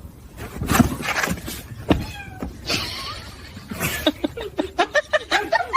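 A cat meowing and yowling, in short falling calls and then a quick run of cries, with a few sudden knocks near the start.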